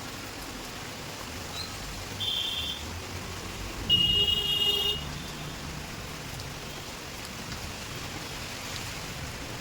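Steady hiss of rain, with two short high-pitched tones: a faint one about two seconds in and a louder one of about a second near the middle.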